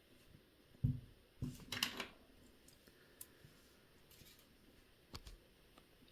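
Light clicks and taps of small tools and watch parts handled on a watchmaker's bench: a dull knock about a second in, a brief scraping rustle just after, then a few light clicks.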